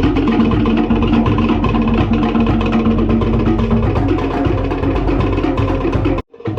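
Music with fast, busy percussion on drums and wood-block-like strikes over held notes. It cuts out abruptly for a moment near the end, then resumes.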